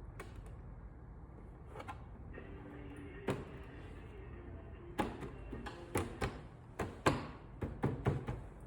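Light knocks and clicks, as of parts and tools being handled, over a faint steady hum; the clicks come thicker from about five seconds in.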